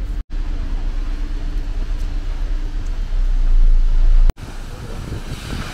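Cruise boat's engine running with a steady low rumble and hum, mixed with wind buffeting the microphone on the open deck. It grows louder about three seconds in and then cuts off abruptly. Near the end, the rushing hiss of the waterfall's spray and wind takes over.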